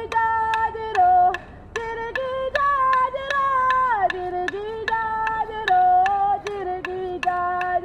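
A traditional Aboriginal song from the Yidinji nation: one voice chanting long held notes that step between a few pitches and slide down about four seconds in. Sharp clicks beat steadily alongside it, about three a second.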